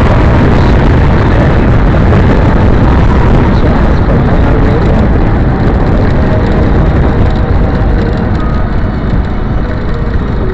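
Heavy, steady wind rumble buffeting the microphone of a camera on a moving bike, mixed with road and passing-traffic noise. It eases a little in the last few seconds.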